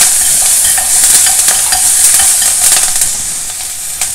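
Green chillies, ginger and curry leaves sizzling in hot oil with mustard seeds and urad dal for a South Indian tempering, with scattered crackles and pops. The sizzle eases a little near the end.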